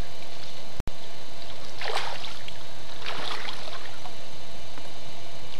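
Water splashing twice in the shallows as a fish is released and swims off, over a steady hiss. The sound drops out completely for an instant about a second in.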